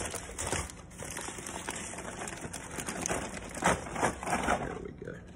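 Aluminium foil crinkling and rustling as gloved hands peel it open. It makes irregular crackles, loudest a little past the middle.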